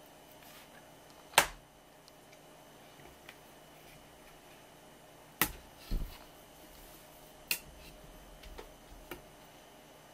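Scattered sharp knocks and taps from handling a plastic food container, a raw striped jack fillet and a kitchen knife on a wooden cutting board. The loudest is a sharp knock about a second and a half in, and there is a dull thump about six seconds in.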